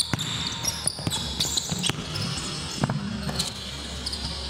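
Basketball game in play: a ball bouncing on the court roughly once a second, with short high sneaker squeaks between the bounces.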